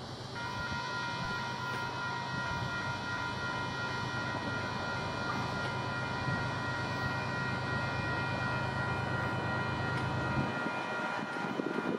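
Norfolk Southern locomotive's multi-chime air horn, still out of sight up the line, sounding one long steady blast that starts about a third of a second in, warning of the train's approach. Under it, a low steady hum cuts off shortly before the end.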